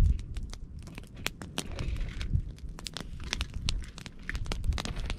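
Wood campfire crackling, with irregular sharp snaps and pops several times a second over a low rumble, and a louder low thump at the very start.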